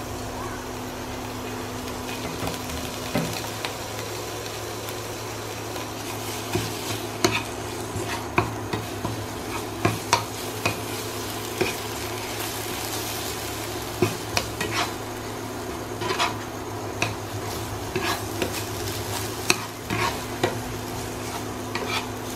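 Spice pastes sizzling in hot mustard oil in a nonstick frying pan while a metal slotted spatula stirs them, scraping and tapping against the pan at irregular moments from a couple of seconds in. A steady low hum runs underneath.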